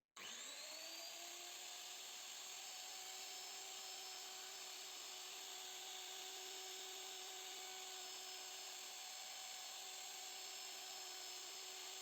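Electric trimmer router spinning up to speed just after the start with a rising whine, then running at a steady high-pitched whine.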